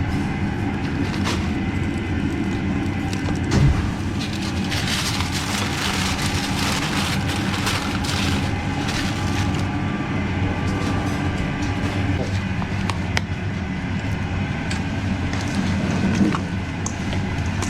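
Steady din of a busy street market, with a low hum underneath and a few sharp knocks, the loudest about four seconds in.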